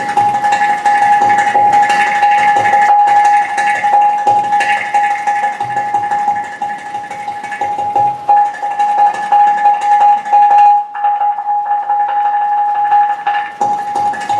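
Manamadurai ghatam, a clay pot, played with the fingers and palms in a fast run of strokes. A steady high tone sounds under the strokes throughout, and the strokes thin out for a moment about eleven seconds in.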